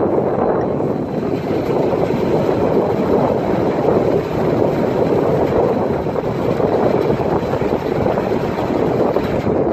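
Steady engine and water noise on board a harbour excursion boat under way, an even rumble with no breaks.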